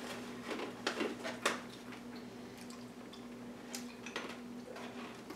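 Scattered faint crunches and clicks from roasted broad bean crisps being chewed and their snack bag being handled, over a steady low hum.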